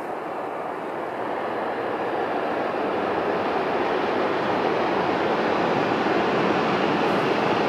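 Tohoku Shinkansen high-speed train running at speed, a steady rushing noise that grows louder as it approaches.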